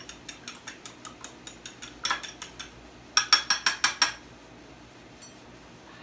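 Fork beating eggs in a small glass bowl: quick, even clicks of metal on glass, about six a second, louder for about a second after three seconds in, then stopping.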